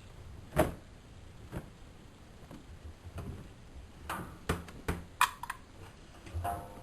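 Irregular clicks and knocks from a washing machine being handled, with no motor running; the loudest knock comes about half a second in and several more follow in quick succession later on.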